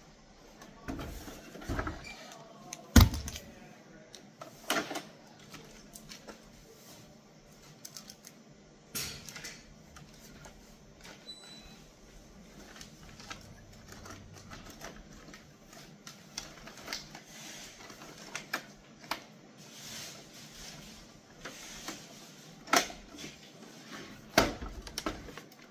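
Irregular clicks and knocks of a GE MAC 2000 ECG machine's plastic housing being handled and set down on a bench, and of paper being loaded into its printer drawer. The loudest knock comes about three seconds in, with a few more sharp clacks near the end.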